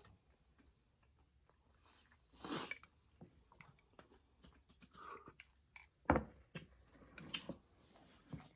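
A person eating egg drop soup with fried wonton strips from a plastic spoon: faint chewing and mouth sounds, with a louder mouthful about two and a half seconds in and a sharp knock about six seconds in.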